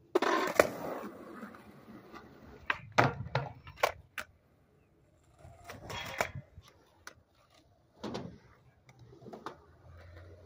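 Skateboard on concrete: a loud rush of wheel and scuff noise at the start, then a quick run of sharp clacks of the board striking down a few seconds in, with more rolling and single knocks later.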